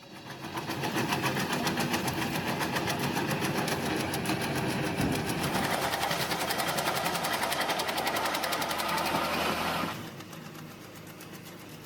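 A machine running with a fast, even rattle, dropping to a quieter running sound about ten seconds in.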